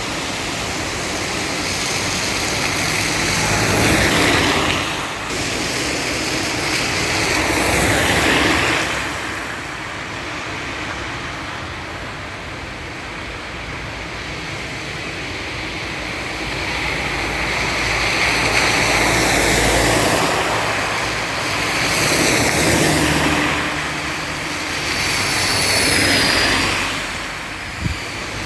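Steady rain on a wet street, with vehicles passing every few seconds, their tyre hiss on the wet road swelling and fading. A short knock near the end.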